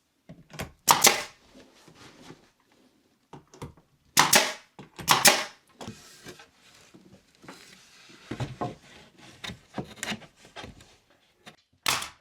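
Pneumatic finish nailer firing nails into wooden trim: a series of sharp shots at irregular intervals, the loudest about a second in and twice around four to five seconds in, with fainter knocks after.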